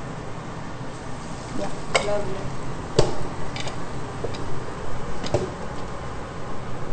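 Kitchenware being handled: about five sharp clinks and knocks of ceramic bowls, a falafel scoop and a glass jar, the loudest about three seconds in.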